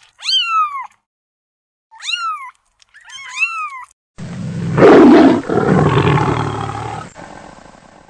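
Kittens meowing three times, each a short high meow that rises and then falls in pitch. About four seconds in comes a lioness's loud, rough growling snarl, loudest in its first second, fading away over about three seconds.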